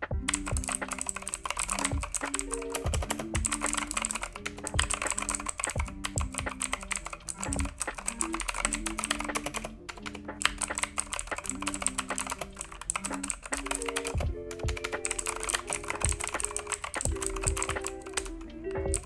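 Fast typing on a Redragon Dark Avenger mechanical keyboard whose main keys now carry Akko CS Jelly Purple tactile switches, with foam and tape mods inside: a dense run of key clacks with brief pauses about ten and fourteen seconds in.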